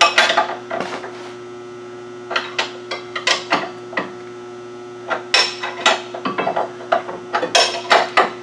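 Scattered metal clanks, taps and clicks from hands and tools on a pickup's front suspension parts, most of them clustered about two to four seconds in and again near the end. Under them runs a steady electrical hum from the shop lights.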